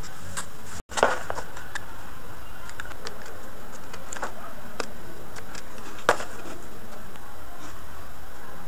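Utility knife blade cutting into the thin plastic wall of a paint tub, with the tub being handled: scattered sharp clicks and creaks of the plastic, the loudest about six seconds in, over a steady hiss.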